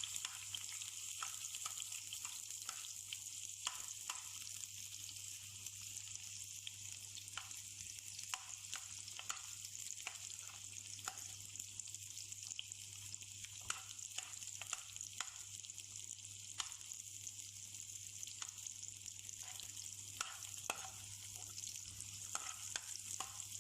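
Garlic frying in hot oil in a pan: a steady sizzling hiss with frequent scattered crackles and pops as it cooks toward brown.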